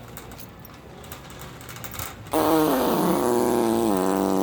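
A long, loud fart that starts about two seconds in, pitched and buzzing, dropping in pitch in steps as it goes on.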